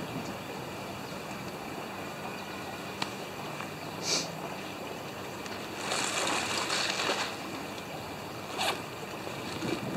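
Backpack zipper being worked: a short zip about four seconds in, a longer zip from about six to seven seconds, and another short zip near the end, over a steady background hiss.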